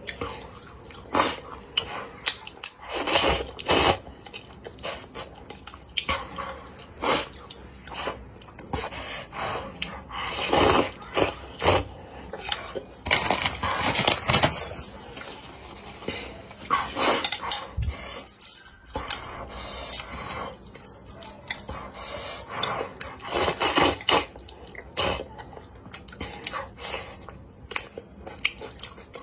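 A person eating spicy flat noodles with wooden chopsticks from a heavy dark bowl: irregular slurps and wet chewing, with chopsticks clicking and scraping against the bowl.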